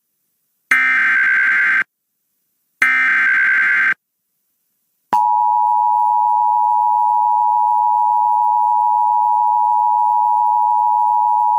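Emergency Alert System SAME header: two short bursts of warbling digital data tones, about a second each. After a pause, the steady two-tone EAS attention signal starts about five seconds in. It heralds a new National Weather Service severe thunderstorm warning.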